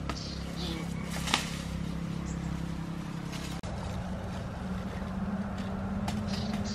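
A machete strikes a black ant nest once, about a second in, followed by light clicks and scraping as the nest's soil is broken into a woven tray, over a steady low hum.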